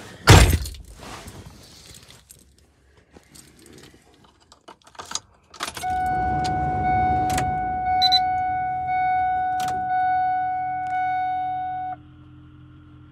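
A thump just after the start, then keys jingling in a Ford F-250's cab. When the key is turned on, the warning chime rings for about six seconds, pulsing about once a second, and a faint steady low hum carries on after the chime stops. The 7.3 Powerstroke diesel has not yet cranked.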